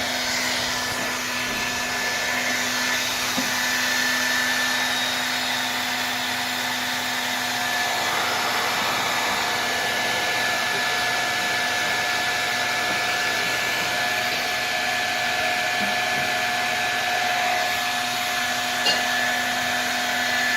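Hair dryer running steadily, a constant rush of blown air with a steady motor whine.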